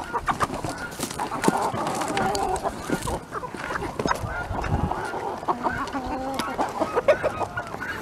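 A mixed poultry flock of chickens and turkeys calling while they feed: many short, overlapping clucks and calls with no pause between them.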